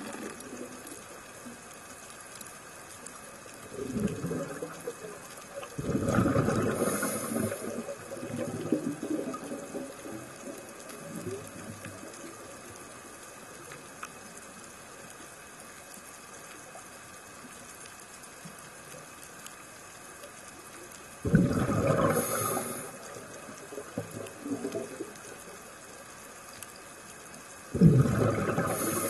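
A scuba diver's exhaled breath bubbling out of the regulator, heard underwater: a short burst about four seconds in, longer bursts about six and twenty-one seconds in, and another near the end. Quieter steady water noise fills the stretches between.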